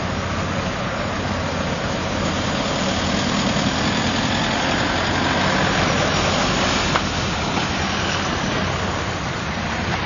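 Ambulance vans and a pickup ambulance driving slowly past close by, their engines running at low speed. The sound swells a little in the middle and eases off toward the end.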